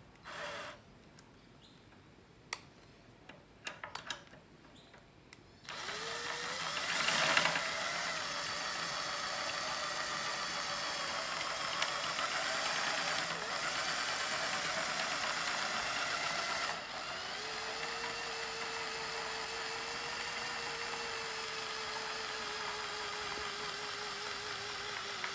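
A power drill turns a scissor jack's lead screw through a crank adapter, lowering the jack and its platform. A few light clicks come first; about six seconds in the drill starts and runs steadily. A little past halfway it drops slightly in level, with a steady tone that sags a little in pitch.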